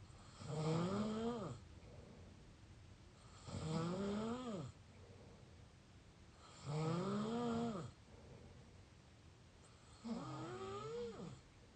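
A person snoring through the open mouth: four snores about three seconds apart, each lasting about a second, with a pitched tone that rises and then falls.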